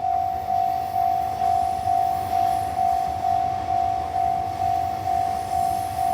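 Japanese railway level-crossing warning bell ringing: one electronic ding repeated evenly about two times a second, the signal that a train is approaching or passing and the barriers are down.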